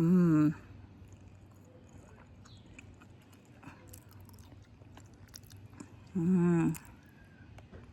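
A person eating a carrot cookie: two short, wavering "mmm" hums of enjoyment, one at the start and one about six seconds in, with faint chewing in between.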